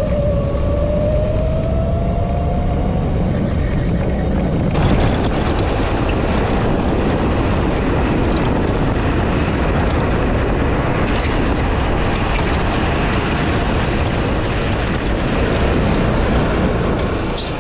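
Electric go-kart motor whining, its pitch rising slowly as the kart gathers speed, over a rush of wind and road noise. About five seconds in the whine drops out and a loud, steady rush of wind and road noise on the onboard microphone takes over.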